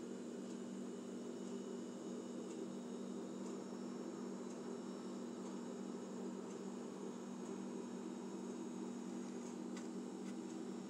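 Steady low hum under faint room noise, with faint high ticks about once a second and a slightly sharper click near the end.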